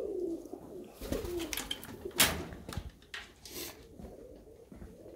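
Koros tumbler pigeons cooing, low wavering coos throughout. Over them come a few sharp knocks and rustles, the loudest a crack about two seconds in.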